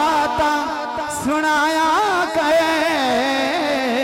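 A man's voice singing a Punjabi devotional poem through a microphone and loudspeakers, drawn out in long ornamented notes with a wavering pitch and no words clearly sung.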